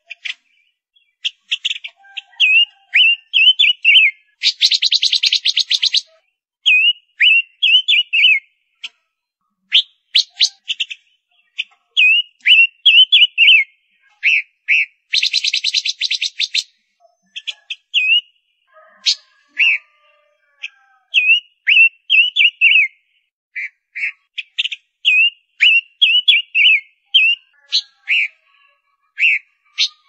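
Female silver-eared mesia calling: phrases of quick, sweet whistled notes that rise and fall, mixed with sharp single chips. About every ten seconds the notes break into a rapid, dry rattle.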